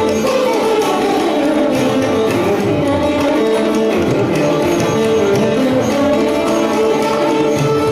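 Background music: instrumental Indian classical-style music with melodic lines over a steady, even level.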